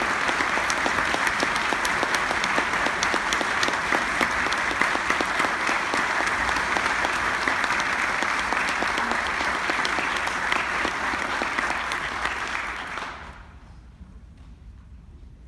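Audience applauding in a concert hall: dense, steady clapping that dies away near the end.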